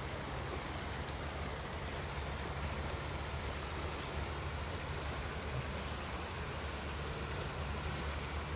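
Steady outdoor riverside ambience: an even hiss of flowing river water under a constant low rumble of wind on the microphone.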